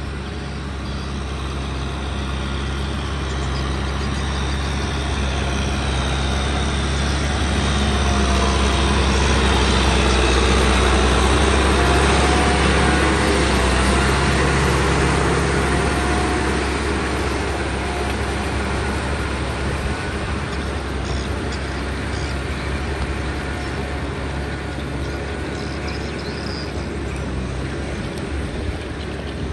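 Kubota M6040 tractor's diesel engine running steadily under work, a continuous hum that grows louder toward the middle and then eases off.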